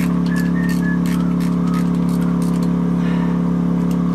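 A steady engine-like drone running at constant speed, with light clicks and clinks of tools on metal scattered over it.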